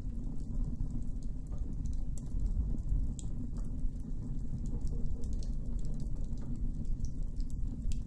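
Campfire of burning coals crackling: scattered small pops and snaps over a steady low rumble, with a few sharper pops about three seconds in and near the end.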